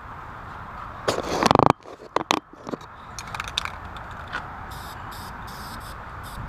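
Aerosol spray paint can in use: a loud burst of hiss and rattle about a second in that cuts off suddenly, then a few clicks, and a run of short hissing puffs of spray near the end.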